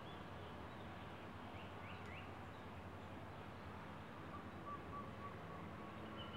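Steady outdoor background noise with a low hum, with a few short bird chirps about two seconds in.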